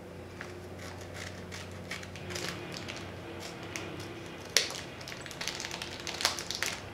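Plastic candy bag crinkling as it is handled and cut open, a run of small crackles with one sharp click about four and a half seconds in.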